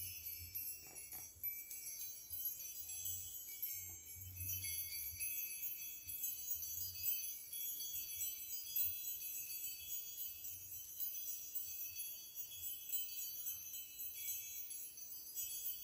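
Soft, continuous high tinkling of small chimes, many thin ringing tones overlapping without a break.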